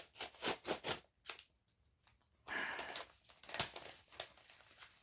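Postal packaging being torn open and handled: a quick run of tearing and rustling in the first second, a short pause, then more crinkling and a sharp click.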